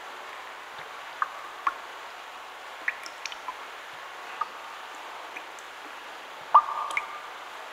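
Water drops falling into a pool, single drops plinking at irregular intervals over a steady hiss, with one louder drop near the end.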